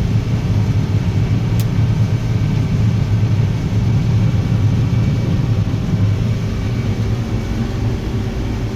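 Combine harvester running steadily while harvesting corn, a low drone heard from inside the cab. One faint click about a second and a half in.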